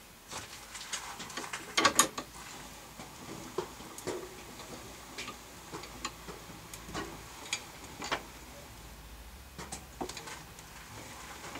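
Scattered light clicks and knocks at irregular intervals, with two sharp clicks about two seconds in.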